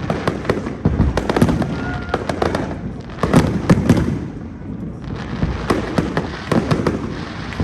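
Fireworks display: a rapid, continuous run of bangs and crackles, with the densest, loudest clusters about one and three to four seconds in.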